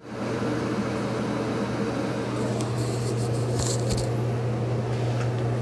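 A steady low hum, with a short patch of faint clicks and rustles in the middle.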